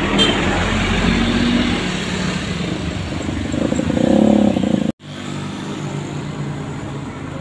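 Road traffic: vehicle engines running as they pass, louder for a moment just before the sound cuts out abruptly about five seconds in.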